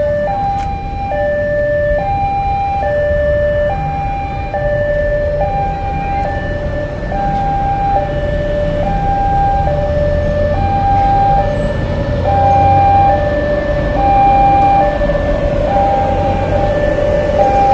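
Railway level-crossing warning alarm sounding a two-tone high–low signal that alternates steadily, each tone lasting just under a second. Beneath it is the low rumble of a commuter train rolling past the crossing, which grows louder in the second half.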